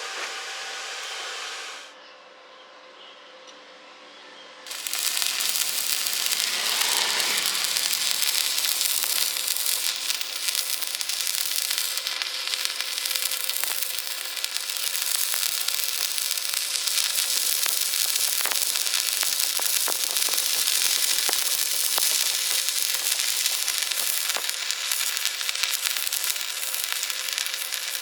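Stick (shielded metal arc) welding: the arc strikes about five seconds in and keeps up a steady crackling sizzle. Before it there is a steady whirring noise, then a brief quieter moment.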